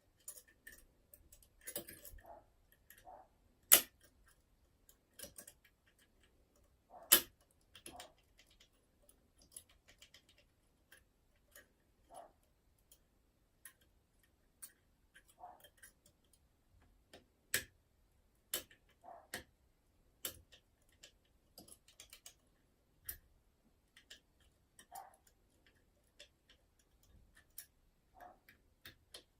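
Small irregular metal clicks and ticks of a curtain pick and tension wire working the levers inside a Union Strongbolt 5-lever mortice lock during picking, with two sharper clicks in the first quarter.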